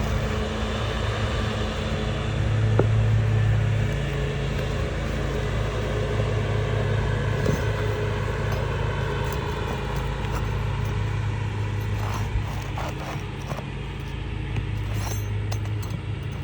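Lawnmower engine running steadily in the background, its drone swelling and fading a few times. A few light scrapes and clicks come in near the end.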